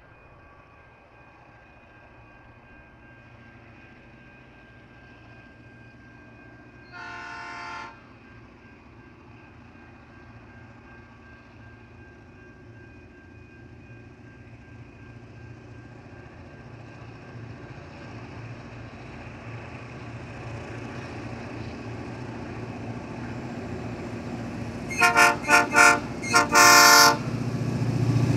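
Diesel locomotives of a grain train, led by S class S312, approaching with their engines growing steadily louder. The multi-tone horn sounds once for about a second early in the approach, then gives three short blasts and a longer one near the end as the locomotives reach the platform.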